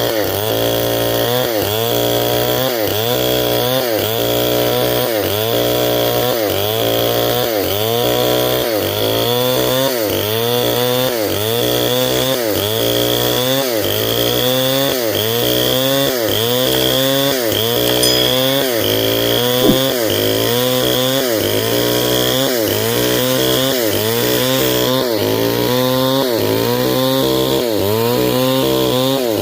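Stihl 070, a large two-stroke chainsaw, running at high speed while ripping along a durian log into beams. Its pitch dips and recovers in a steady rhythm a little more than once a second as the cut loads it.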